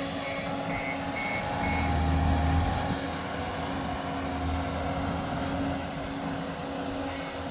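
A vehicle's engine running steadily while its reversing alarm beeps about twice a second, stopping a couple of seconds in and starting again near the end.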